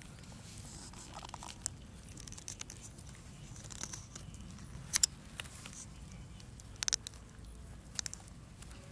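A thin twig scraping and poking in loose soil, digging at a burrow. There are crackly scrapes and scattered sharp ticks, the loudest about five, seven and eight seconds in.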